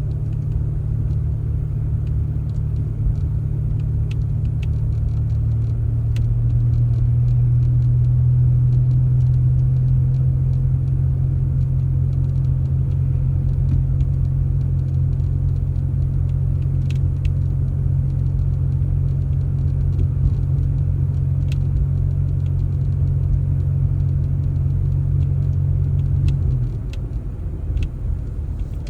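Motor vehicle engine running with a steady low drone that rises a little about six seconds in. The drone drops away near the end, with small clicks and rattles throughout.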